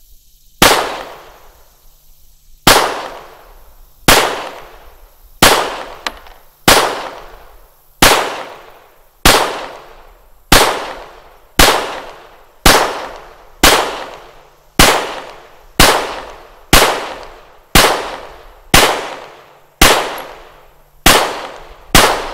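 Custom Glock 17 Gen 3 9 mm pistol firing about twenty single shots at a slow, steady pace of roughly one a second, each shot ringing out briefly before the next.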